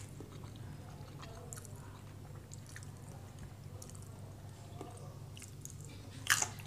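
Someone chewing food softly with small mouth and finger clicks, over a steady low hum. There is a sharper click near the end.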